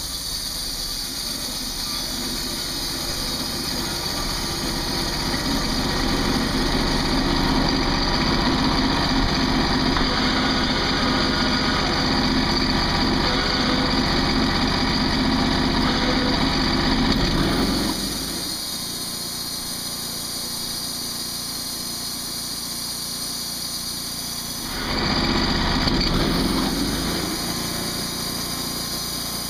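Portable band sawmill running: a small engine drives the band blade. It runs louder and heavier for the first half, drops back to a lower steady run a little past halfway, and swells briefly once more near the end.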